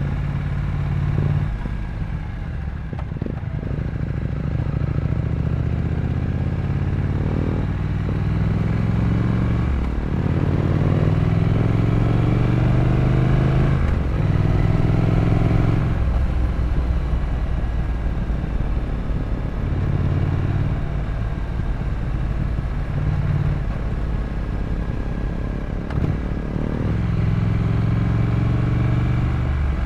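Triumph Scrambler 900's parallel-twin engine running under way. Its pitch climbs and then drops back several times as it pulls through the gears.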